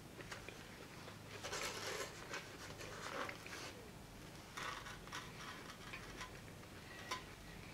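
Plastic fork scraping and scooping food in a styrofoam takeout container, in a few short bursts with a sharp click near the end.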